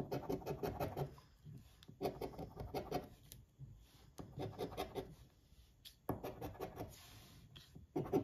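A coin scratching the latex coating off a scratch-off lottery ticket lying on a wooden table. It comes in about five bursts of quick back-and-forth strokes, each about a second long, with short pauses between them.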